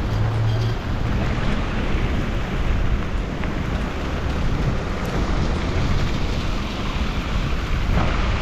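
Steady rush of rain and wind noise on the microphone, with a low rumble of a vehicle engine underneath.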